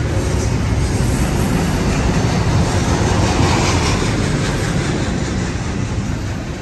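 Steady rolling noise of steel wheels on rail as loaded double-stack intermodal well cars pass close by, loud and continuous, swelling slightly midway and easing a little near the end.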